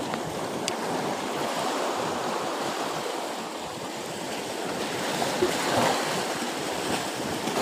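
Sea surf breaking and washing in, a steady rush of water.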